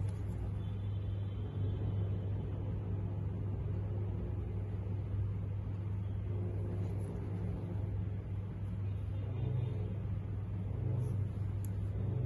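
A steady low hum that does not change in pitch or level, with a couple of faint ticks.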